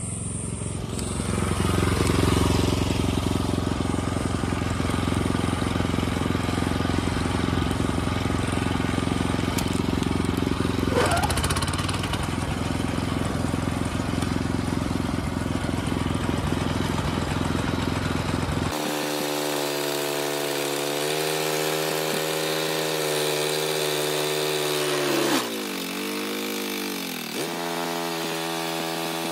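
OREC HRC664 walk-behind hammer knife mower running: a steady engine drone mixed with the rushing noise of the flail rotor cutting grass. About two-thirds of the way through, the sound changes abruptly to a cleaner engine hum. Near the end its pitch dips and recovers as the mower pushes into tall grass.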